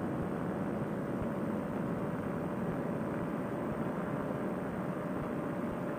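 Fresh Breeze Monster two-stroke paramotor engine and propeller running steadily at cruise power, heard as a muffled, even drone with a faint steady hum, mixed with wind rush.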